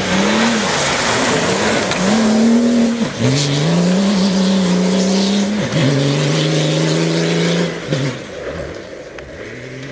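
Mini All4 Racing rally-raid car's six-cylinder turbodiesel engine under full throttle, pulling away through the gears: the engine note drops sharply three times as it upshifts, then fades as the car moves off down the gravel track.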